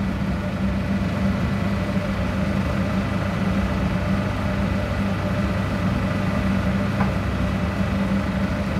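Charnwood DS10/20 drum sander and its dust extractor running steadily with no board under the drum: an even motor hum with a rush of air.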